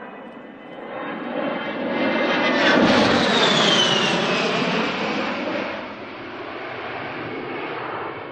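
The twin electric ducted fans of a Dynam A-10 Warthog radio-controlled model jet making a pass. The rushing whine grows louder from about a second in and peaks around three seconds. Its pitch falls as the model goes by, and it then eases back to a steadier, fainter whine.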